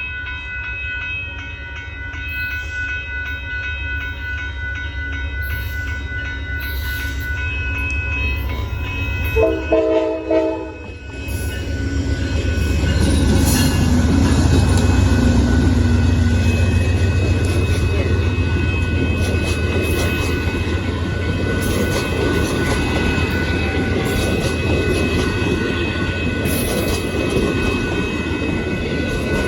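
Amtrak passenger train moving through a grade crossing as it takes the siding, with steady high-pitched ringing tones over a low rumble. About ten seconds in, the locomotive's chord horn gives two short blasts. After that the rolling wheel noise of the passing train grows louder and steadier.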